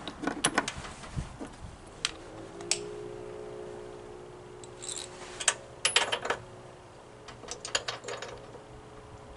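Socket wrench threading a spark plug back into a small mower engine: short runs of metallic clicks, with pauses between them.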